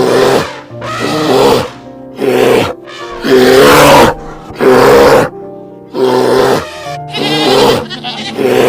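A large animal's roaring calls repeated about once every second, over background music.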